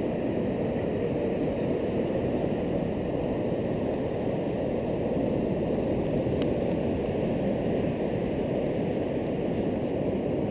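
Wind buffeting the microphone of a dog's collar camera: a steady low rushing noise that does not let up, with one faint click about six and a half seconds in.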